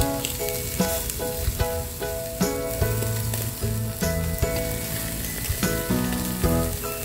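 Marinated beef short ribs sizzling over hot charcoal on a kettle grill, a steady hiss, with a melodic background music track playing over it.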